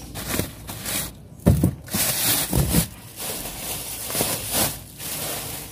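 Thin plastic bag rustling and crinkling as it is handled and filled, with two dull thumps about one and a half and two and a half seconds in.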